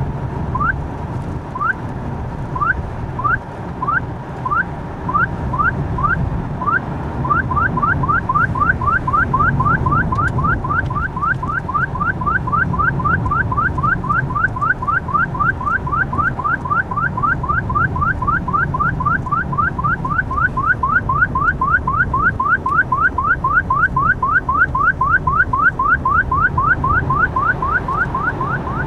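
Stinger DSI speed-camera detector sounding its warning for a Gatso camera ahead: a short rising chirp repeated over and over, slow at first and quickening to about four a second from roughly seven seconds in. Underneath is the car's steady road and engine noise.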